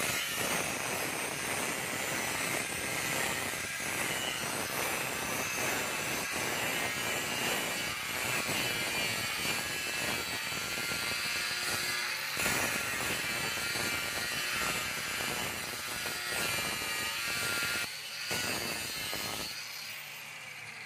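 Handheld angle grinder with a cut-off disc cutting through a steel angle bar: a continuous, loud, high grinding. Near the end the disc leaves the steel and the grinder winds down with a falling whine.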